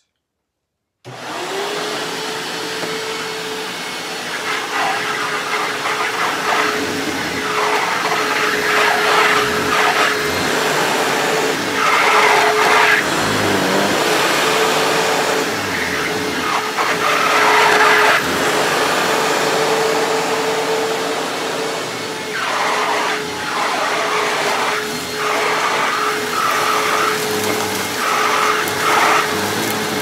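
Hoover WindTunnel Self-Propelled upright vacuum switched on about a second in and pushed back and forth over a rug covered in shredded paper: a steady motor whine under a rushing hiss that swells again and again with each stroke. Its height-adjustment wheels squeak, a sign they need oiling.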